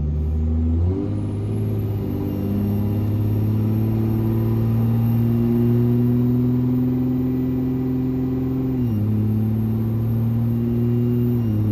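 Diesel pickup engine under a half-throttle pull through the gears of a freshly rebuilt automatic transmission. About a second in, the engine note jumps up as the throttle comes on, then climbs slowly. It drops sharply at an upshift near nine seconds in, climbs again, and drops at a second upshift at the end.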